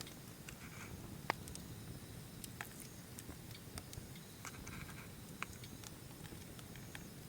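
Wood fire crackling: irregular sharp pops and ticks, one louder snap about a second in.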